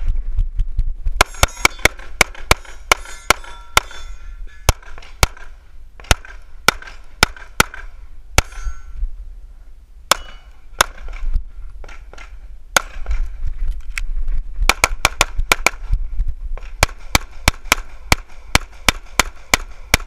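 A ZEV ISI Speedgun pistol fired in rapid strings through a practical-shooting stage: sharp shots mostly in quick pairs and short bursts, with brief pauses between strings while the shooter moves to new targets. The shooting starts about a second in.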